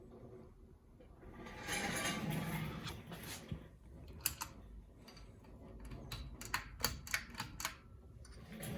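Pull-chain switch and chain of a Harbor Breeze Oakmont ceiling fan being worked: a run of sharp clicks and rattles, thickest near the end, after a brief rustle about two seconds in.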